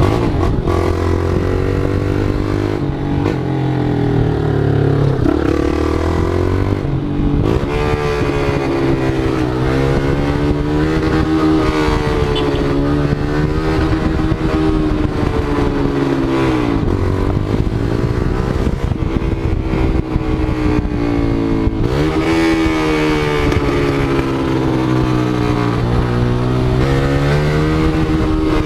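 Motorcycle engine revving, its pitch rising and falling in slow swells every few seconds.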